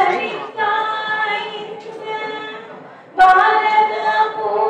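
Female voice singing a devotional song unaccompanied, in long held notes, with a new phrase starting loudly about three seconds in.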